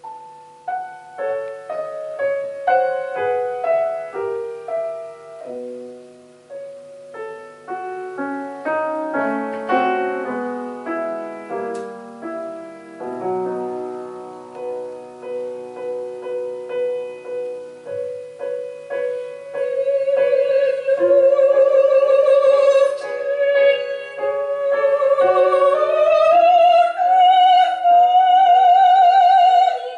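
Grand piano playing a classical introduction alone. About twenty seconds in, a soprano enters with a held, vibrato-rich line over the piano, rising to a higher sustained note near the end.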